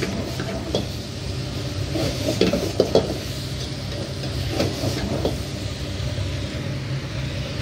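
A metal ladle stirring and scraping diced onions and meat in an iron wok, with a light sizzle of frying. The strokes come in bunches and are loudest around the middle, over a steady low fan hum.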